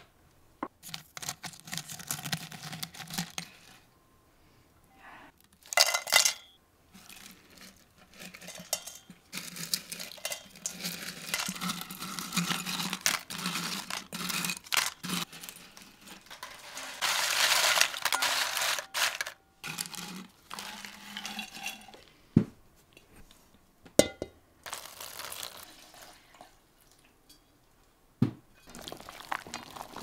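Dried mushroom slices rustling and clattering as they are handled out of a glass jar and dropped into an enamel bowl, in uneven bursts with pauses, with clinks of glass and enamel and a few sharp knocks in the second half.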